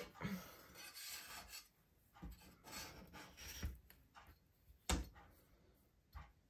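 Metal palette knife scraping under soft cut-out cookie dough on a wooden board, lifting the rounds off one by one in several short scrapes. A single sharp knock about five seconds in.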